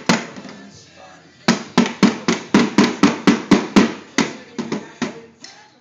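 Child's plastic toy drum beaten with drumsticks. One hit, a pause of over a second, then a run of about fourteen quick hits at roughly three a second that spread out near the end.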